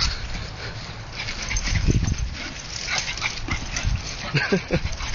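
A dog making short whines and yelps, with a quick run of them near the end, among scattered short clicks and knocks.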